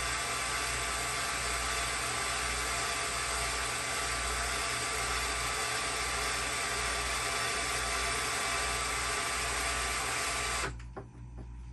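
A new electric linear actuator for a bed lift extending under load: a steady geared-motor whine that cuts off suddenly near the end.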